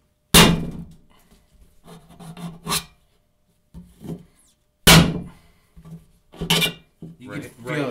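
Harnds Beak folding knife stabbed twice into a steel food can. Each stab is a sharp metallic punch, followed by the blade grating and tearing as it is worked through the tin, the metal screaming against the edge.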